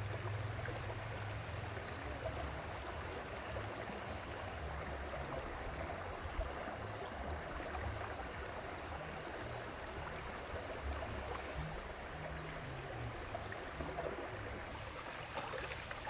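Shallow rocky river running steadily over stones, an even rushing and trickling of water.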